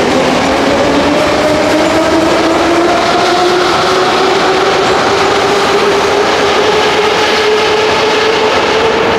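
Moscow Metro train pulling out of the platform and accelerating: a loud rumble of wheels on rail, with the traction motors' whine rising in pitch over the first few seconds and then holding steady.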